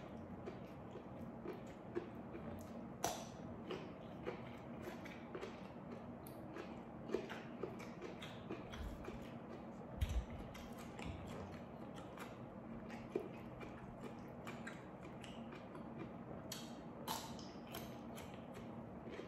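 Close-up eating sounds: wet chewing and crunching of raw vegetables and rice eaten by hand, with many small clicks as fingers pick and scrape rice on a stone plate. A dull knock comes about ten seconds in.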